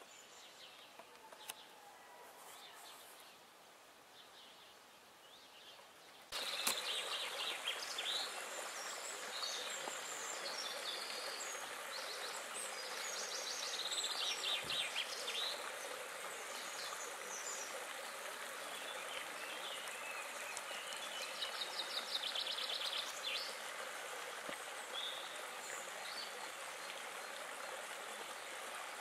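Quiet ambience with faint birdsong for about six seconds, then, from a sudden step up in level, a steady rush of rippling water with several birds singing over it.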